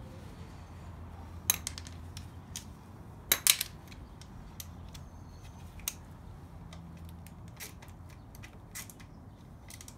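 Steel sockets and a ratchet clinking as they are handled and fitted onto a bolt: a few scattered sharp metal clinks, with a tight cluster about three and a half seconds in, over a steady low hum.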